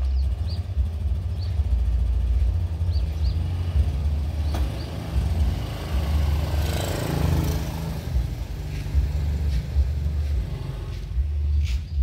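Motor scooter's small engine running as it carries two riders away, swelling as it passes close about seven seconds in, over a steady, uneven low rumble.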